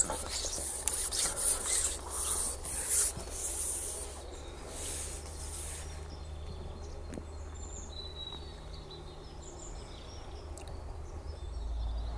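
Handling noise: rubbing and rustling in short bursts for the first six seconds or so, then a quiet outdoor background with a few faint high chirps.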